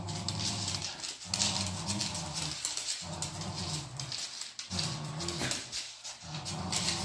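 Miniature schnauzer growling in play while tugging a rope toy: a string of low growls, each about a second long, with short breaks for breath between, over a scratchy rustling.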